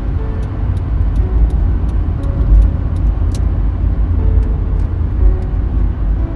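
A steady, loud low rumble like a motor vehicle on the road, with faint music notes and light clicks beneath it.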